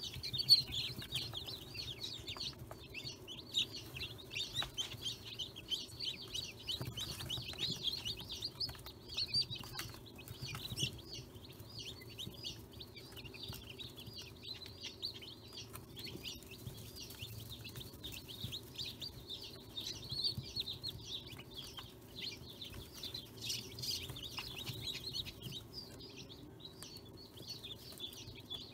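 Dozens of newly hatched chicks peeping constantly in a brooder, their many short high chirps overlapping.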